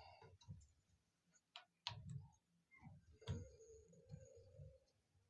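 Faint, scattered clicks and taps of small faucet parts, the ball valve, seats and springs, being handled and pressed into the shower valve body, with a faint drawn-out squeak a little past the middle.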